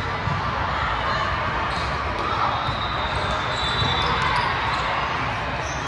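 Steady din of a large hall full of volleyball courts: indistinct crowd chatter with scattered thuds of volleyballs being hit and bouncing.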